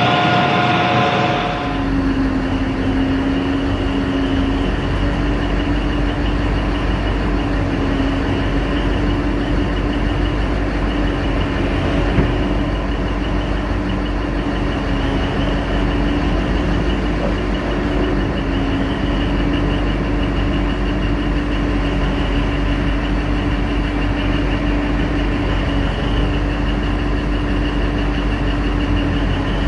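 Large mining face-shovel excavator's diesel engine running steadily under load, a continuous deep rumble with a steady whine over it. A single short knock sounds about twelve seconds in.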